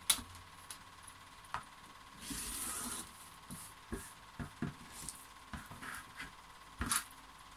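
Rotary cutter slicing through fabric on a cutting mat: one short rasping cut about two and a half seconds in, with a sharp click at the start and scattered light taps and clicks of the ruler and cutter on the mat.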